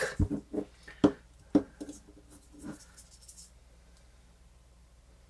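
Thin metal pry tool scraping and clicking against the plastic housing of an Ecobee smart sensor as it is worked into a notch to pry the case open: a few light, separate scrapes and clicks over the first three seconds.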